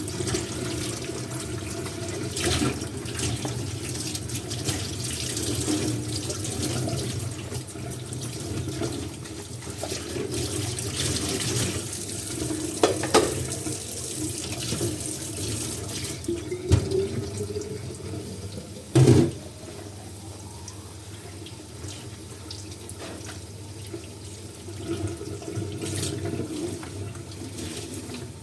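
Tap water running into a kitchen sink during dishwashing, with a few sharp knocks of dishes against the sink, the loudest about two-thirds of the way through.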